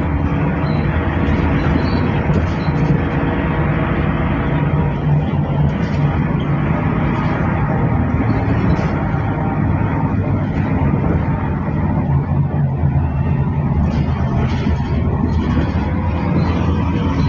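Mercedes-Benz OC500LE bus engine running under way, heard from inside the cabin as a steady drone. It has an odd, hollow sound, like a big metal box, where it used to sound normal.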